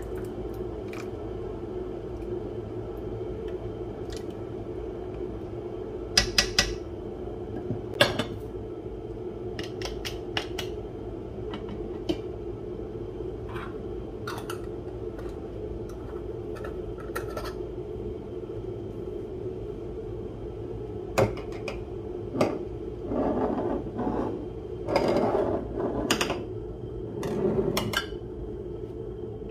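Glass jars and metal lids being handled on a kitchen bench: scattered sharp clinks and knocks, with a cluster of louder knocks and scrapes near the end, over a steady low hum.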